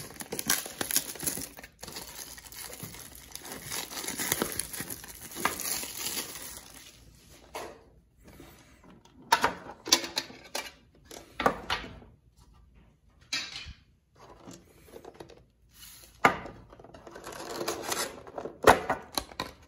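Plastic wrapping crinkling and tearing as a Pokémon TCG Celebrations metal tin is unwrapped. This is followed by scattered sharp knocks and clicks as the tin is opened and its packs and cards are handled.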